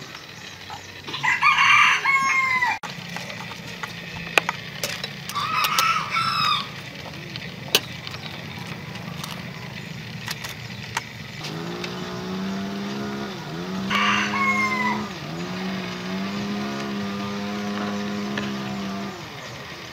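Roosters crowing three times: about a second in, about five and a half seconds in, and about fourteen seconds in. From a little past halfway a steady low hum with two brief dips runs under the crowing, stopping near the end, with a few sharp clicks scattered through.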